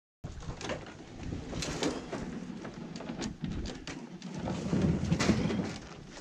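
A Yamaha Enticer snowmobile being pushed down a steel mesh trailer ramp: irregular metal knocks and clanks with scraping as its skis and track slide over the ramp.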